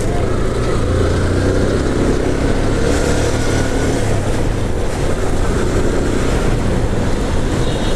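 Motorcycle engine running steadily as the bike rides along a street, with an even rush of road and wind noise.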